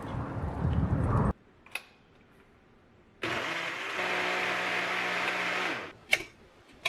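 A small motor hums steadily for about three seconds, then stops, followed by a sharp click. Before it, a low rumble cuts off abruptly.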